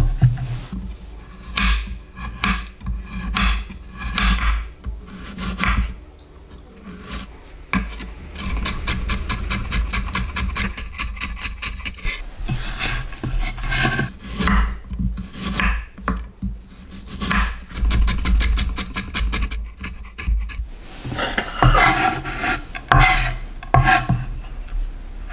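Chef's knife julienning carrots on a bamboo cutting board: repeated crisp cuts of the blade through carrot and onto the wood, at times in fast, even runs of several cuts a second.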